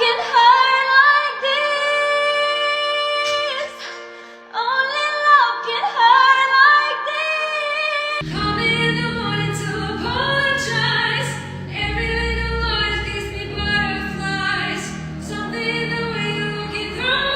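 A woman singing high, long-held and gliding notes over sustained chords. About eight seconds in, a bass and drum backing comes in under the voice.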